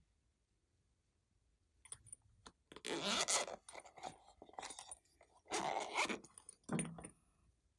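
Hands handling a bow-shaped plastic clay container: after a quiet start, several separate bursts of crinkly, crackling rustles.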